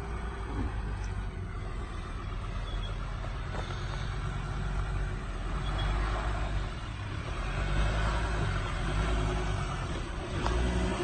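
Ford Ranger pickup's engine working under load off-road, its revs rising and falling a few times.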